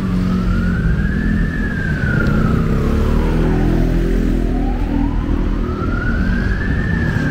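Ambulance siren wailing, its pitch rising and falling slowly: it peaks about a second in, sinks to its lowest near the middle and peaks again near the end. Steady low road rumble lies underneath.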